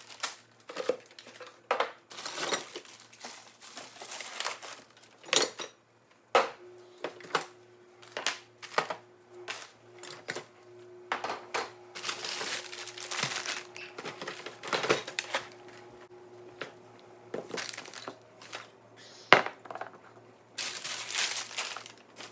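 Frozen food bags and packages crinkling and rustling, and containers knocking and clattering, as a home freezer is emptied out. The sounds come in many short, irregular bursts. A faint steady tone runs under them through the middle stretch.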